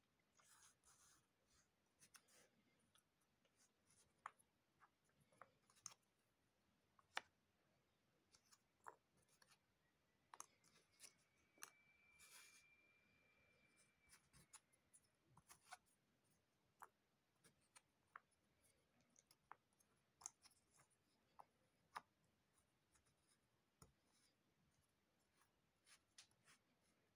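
Cardboard jigsaw puzzle pieces being picked up, slid and set down on a puzzle mat: faint, irregular light clicks and soft scrapes. A faint thin tone holds for about three seconds near the middle.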